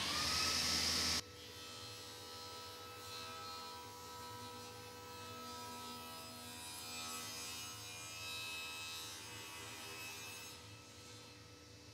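Sliding-table circular saw: a loud whine in the first second that cuts off abruptly, then a quieter steady machine hum with several even tones.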